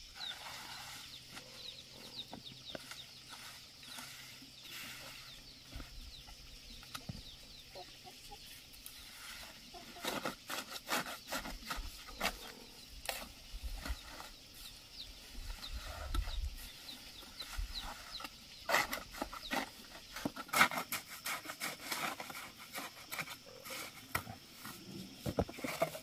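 Irregular scrapes and taps of a hand float working the surface of a freshly poured concrete path. They are sparse at first and come thick and fast from about ten seconds in.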